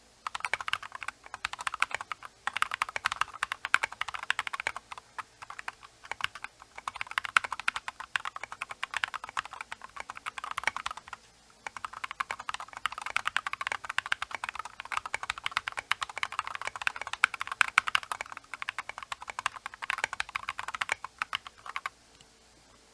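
Typing on a Rakk Lam-Ang Pro mechanical keyboard with Glorious Holy Panda tactile switches lubed with Krytox 205g0, lubed plate-mounted stabilizers and SA-profile keycaps: runs of rapid keystrokes with a couple of short pauses, stopping about a second before the end. A faint steady microphone hiss lies underneath.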